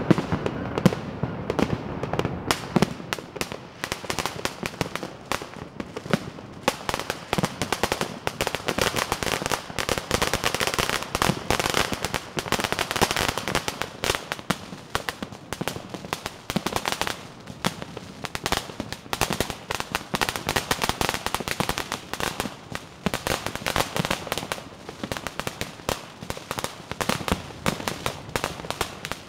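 Many firecrackers and fireworks going off at once in a dense, unbroken crackle of sharp bangs.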